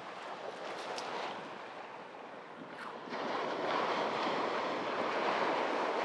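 Small surf washing in on the beach, a steady wash that swells louder about halfway through as a wave comes in.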